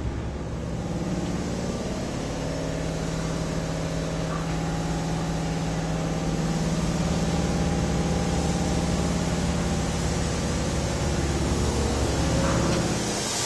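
Steady hum and rumble inside a Tobu Spacia limited-express train car, with a constant low droning tone from the car's onboard equipment. It drops away near the end.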